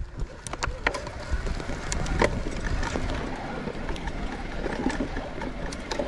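Electric mountain bike riding down a wet, muddy dirt trail: a steady rumble of tyres rolling through soft mud, broken by irregular sharp clicks and knocks from the bike rattling over the ground.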